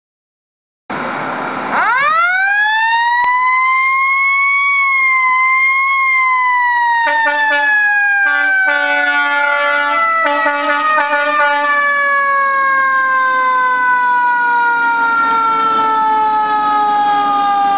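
Fire engine's mechanical siren winding up to a high wail about two seconds in, holding, then slowly winding down in pitch as it coasts. A few short horn blasts sound over it in the middle.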